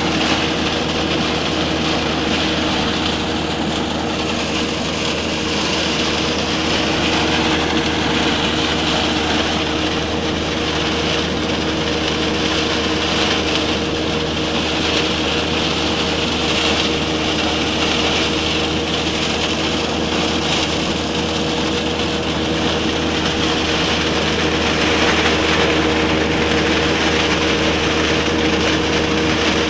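Peanut threshing and winnowing machine running steadily: a constant engine drone with a two-note hum under a steady wash of noise from the working sieve.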